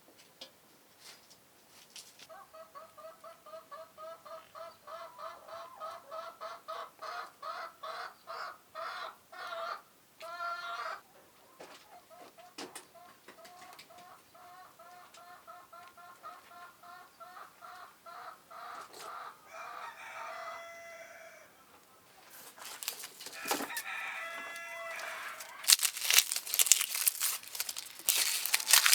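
Chickens clucking in a long, rapid series of short, evenly spaced calls, about four a second. Near the end there is louder crackling noise, with a few more calls mixed in.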